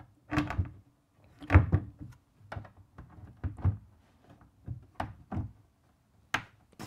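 Wooden cabinet door being hung on concealed hinges: a run of separate clicks and wooden knocks as the hinges go onto their mounting plates and the door bumps the cabinet frame, the loudest about a second and a half in.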